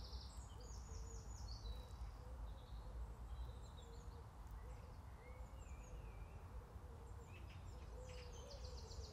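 Small songbirds singing, with high quick trills that are strongest about half a second in and again near the end. Under them runs a faint low note repeating over and over, and a low steady rumble.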